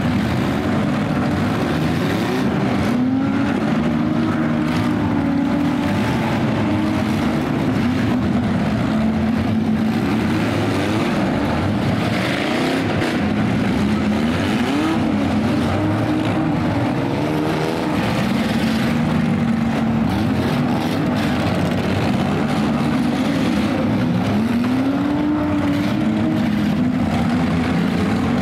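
Several demolition derby cars' engines revving and running at once, their pitches rising and falling as they rev up for hits, with scattered bangs of cars colliding.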